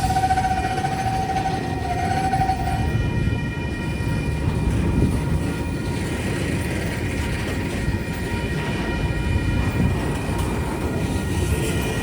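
Tasrail diesel locomotives and train: a steady horn blast that stops about three seconds in, over the continuous low rumble of the train rolling by.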